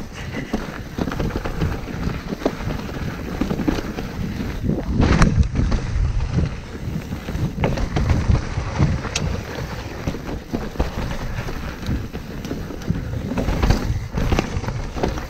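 Mountain bike ridden over a rough trail: tyres rumbling over dirt, roots and wooden features, with frequent knocks and rattles from the bike and wind buffeting the microphone. A louder jolt comes about five seconds in.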